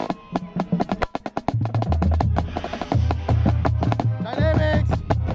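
Marching band music heard from inside the drumline: crisp, rapid drum strokes close to the microphone, sparse at first. A repeating deep bass line comes in about two seconds in.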